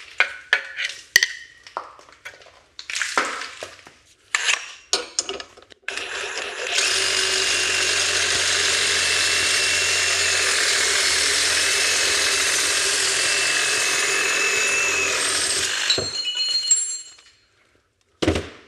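A few clicks and knocks of tools being handled, then a power tool running steadily for about nine seconds with a high, even whine, cutting through a car's exhaust pipe. It stops about sixteen seconds in, followed by a single knock near the end.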